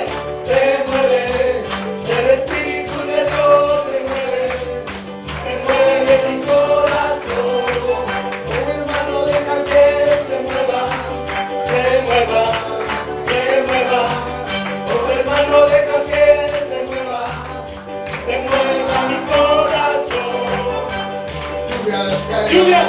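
Congregational worship music: a group singing a melody over a steady band accompaniment with tambourine.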